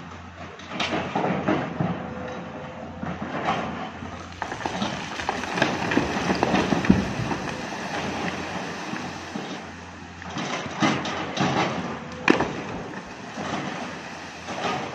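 Rock and soil pushed off a cliff edge tumbling down the rock face into water: a continuous rumble broken by many irregular cracks and clatters of falling stone.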